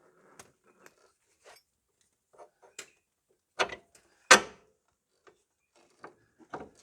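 Metal parts and tools clinking and knocking while the lower ball joint is refitted into the hub. Light scattered clicks, then two sharper knocks at about three and a half and four and a half seconds in.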